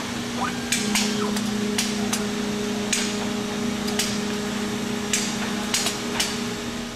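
Hard-disk media handling robot at work: a steady machine hum, a short rising motor whine under a second in, and sharp mechanical clicks about once a second, some in quick pairs, as the end effector moves and grips.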